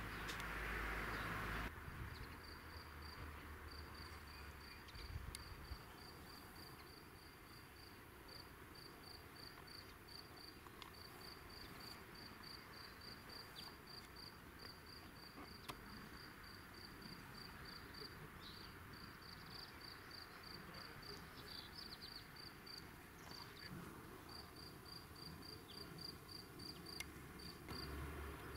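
A cricket chirping steadily, about four short high chirps a second, faint over quiet outdoor background. A louder rushing noise fills the first two seconds and cuts off abruptly.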